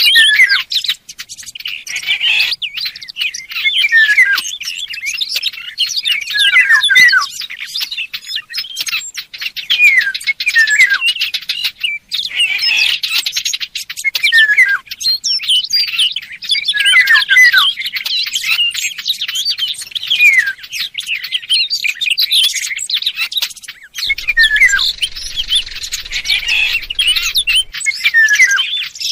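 Bird-lure recording mixing Eurasian golden oriole and small warbler ('fig bird') calls. Dense rapid chirping with short falling whistles comes in repeated phrases about every two seconds.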